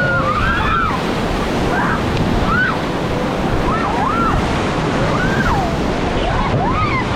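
Rushing river water in a rapid with wind buffeting the microphone, a steady loud wash of noise. Several short high rising-and-falling cries from people on the raft call out over it.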